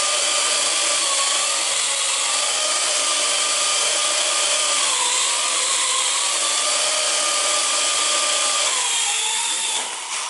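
Parrot AR.Drone quadcopter's four electric rotor motors whining steadily as it hovers, the pitch wavering up and down as the motors keep adjusting its height and yaw. Just before the end the pitch shifts and the sound starts to fall away as the drone comes down to the floor.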